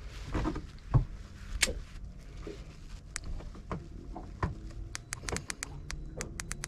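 Scattered knocks and rattles of fishing gear being handled on a small boat, then near the end a fast, even run of sharp clicks.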